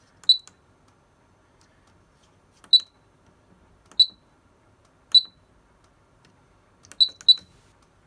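Pertronic fire alarm control panel keypad beeping as its buttons are pressed: six short, high beeps, each with a faint click, the last two close together near the end.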